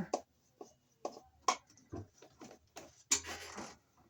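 Irregular clicks and taps from hands and tools working at an electrical junction box to open up the cable entry, with a longer scraping rustle about three seconds in.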